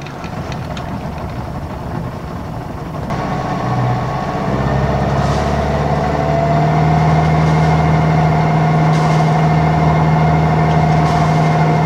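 Sailboat's inboard diesel engine running in reverse, opened up about three to four seconds in and running louder and steadily from about six seconds on, with a steady whine above it. The boat is backing down on the anchor to set it.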